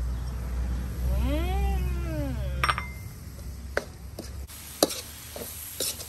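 A cat meows once, a long call rising and then falling in pitch. Then a spatula clinks against the wok several times as the stir-fry is stirred.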